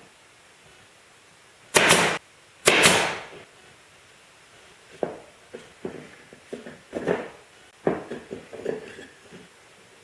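Pneumatic nailer firing twice into wood, about a second apart, each shot a sharp pop followed by a short hiss. Then a series of lighter knocks and clicks as wooden parts and a bar clamp are handled.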